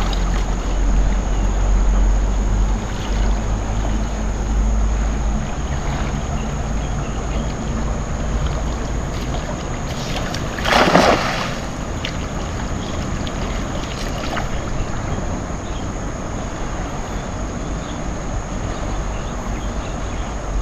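Wind noise on the microphone over moving water, with one brief splash about halfway through as a thrown cast net lands on the river surface.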